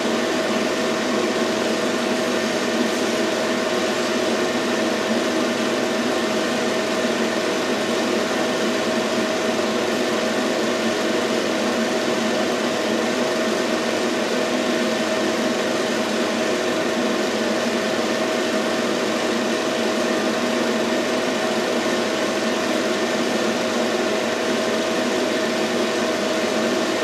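Film projector running: a steady mechanical hum and hiss with a constant mid-pitched tone.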